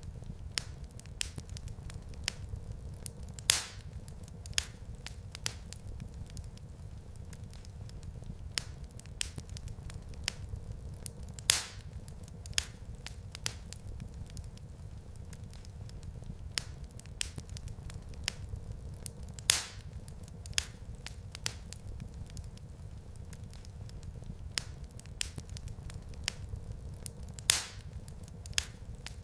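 Wood fire crackling in a fireplace: frequent small sharp snaps over a steady low rumble of the flames. A louder pop comes about every eight seconds.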